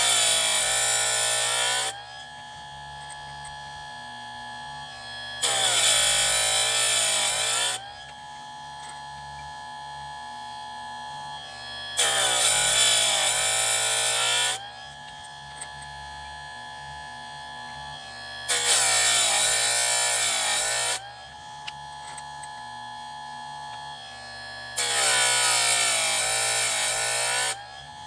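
Electric chainsaw sharpener's motor running with a steady hum, its grinding wheel brought down onto one chain tooth after another about every six seconds. Five grinds of two to three seconds each, harsh and loud over the hum, the motor's pitch dipping under the load and recovering as the wheel lifts.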